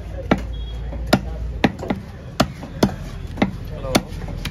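Knife chopping at a red pomfret on a wooden chopping block: about six sharp knocks at uneven intervals as the blade strikes through onto the wood.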